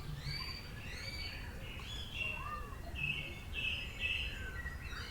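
Songbirds chirping: a run of short, arching chirps, then longer, lower notes from about two seconds in, over a steady low background rumble.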